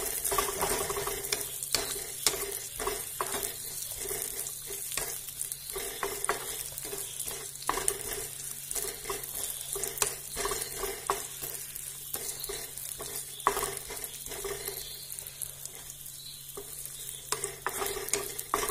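Cashews and black raisins frying in ghee in a small kadai on a low flame: a steady sizzle, with a spoon stirring and scraping against the pan in frequent short clicks.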